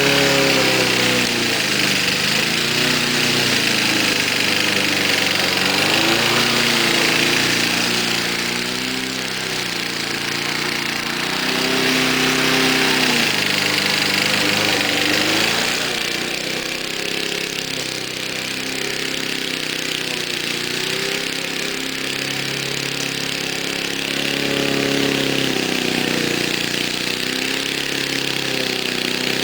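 Briggs & Stratton 3.5 hp single-cylinder lawn mower engine running continuously, its pitch sagging and recovering every few seconds as the blade takes on and clears tall grass.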